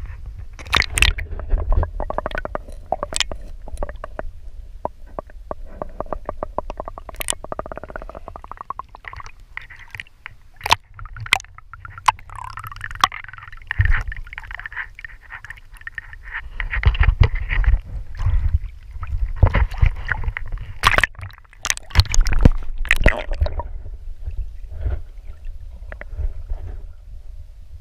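Lake water sloshing and gurgling around a camera at the waterline as it dips in and out of the water, with a constant low rumble and many sharp clicks and splashes.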